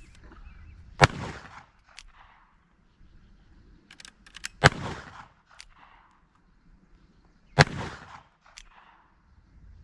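Black powder .36 calibre 1851 Navy cap-and-ball revolver fired three times, about three seconds apart, each shot sharp and echoing. Lighter clicks come between the shots.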